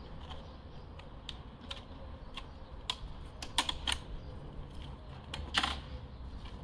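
Irregular small clicks and clacks of hands handling the Surron Light Bee X electric motorbike, with a few louder clacks about three and a half to four seconds in and again about five and a half seconds in, over a low steady street rumble.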